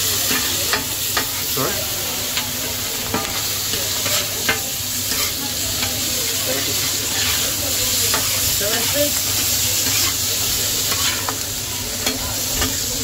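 Tandoori chicken filling sizzling on a hot flat-top griddle while a metal scraper chops and scrapes it. Irregular sharp clicks of the blade striking the plate sound over a steady hiss.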